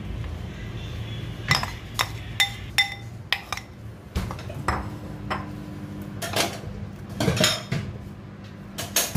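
A spoon clinking and scraping against a ceramic bowl and a steel bowl as a soft meat-and-egg mixture is scooped out and smoothed. There is a string of sharp clinks, several of them ringing briefly, the busiest stretch coming about one and a half to three seconds in.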